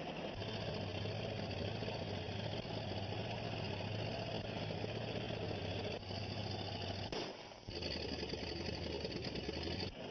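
Old motor vehicle engine running steadily, with a short break about seven seconds in.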